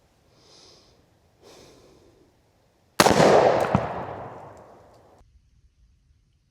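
A single gunshot about three seconds in: a sharp crack followed by a long echoing tail that is cut off abruptly near the end.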